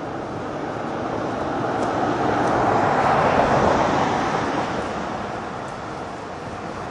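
A road vehicle driving past, a rush of road noise that swells to a peak about three seconds in and then fades.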